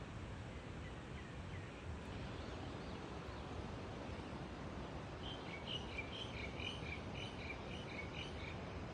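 Steady outdoor background noise, with a bird singing a quick run of short high chirps, alternating between two pitches, from about five seconds in for about three seconds.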